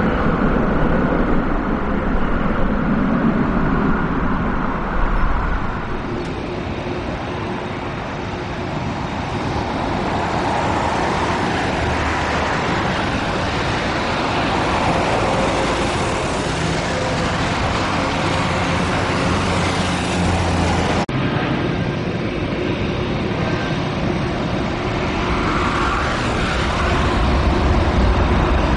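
Jet engines of taxiing airliners, a steady even noise: an Airbus A320 at first, then a Boeing 777 freighter's GE90 engines from about six seconds in. The sound changes abruptly about twenty-one seconds in.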